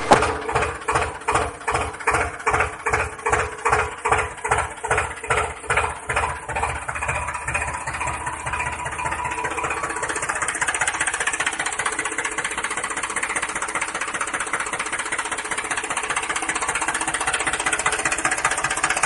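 Tractor engine sound: slow, even chugs about two or three a second that quicken over the first seven seconds or so and merge into a steady running drone.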